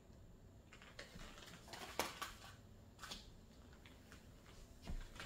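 Faint rustles and light clicks of small plastic zip bags of acrylic diamond-painting drills being moved about by hand, with a sharper click about two seconds in and a soft knock near the end.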